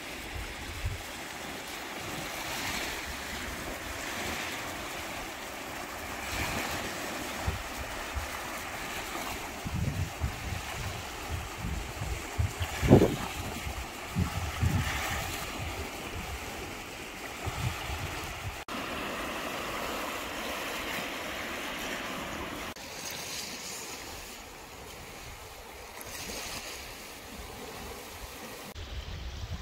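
Small waves washing onto a pebbly beach in steady wind, with gusts buffeting the microphone now and then; the strongest gust knocks about halfway through.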